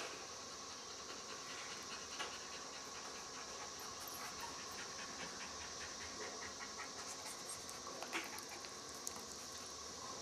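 American Bulldog puppies panting quickly and shuffling about, faint under a steady hiss, with a couple of light clicks near the end.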